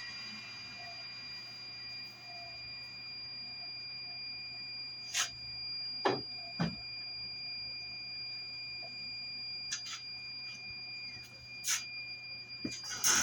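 Fire alarm sounding a steady, high two-note tone, with a few sharp knocks of metal being handled over a low machine hum.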